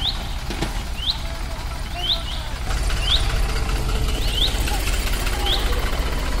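Diesel tractor engines running under load, towing a loaded trolley that is stuck in mud; the engines get louder about two and a half seconds in. A bird calls over them with short, rising chirps about once a second.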